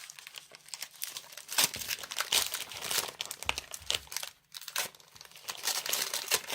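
Foil Pokémon booster pack wrapper crinkling and crackling as it is handled, in quick irregular bursts with a short pause about four and a half seconds in.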